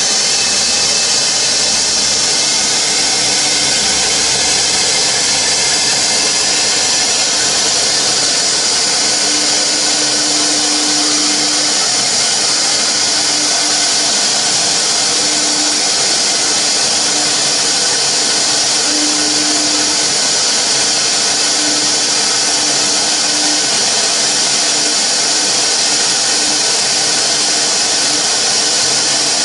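CNC router spindle running at speed, its V-bit cutting shallow grooves into a rigid polyurethane foam board. It makes a steady, high-pitched hiss.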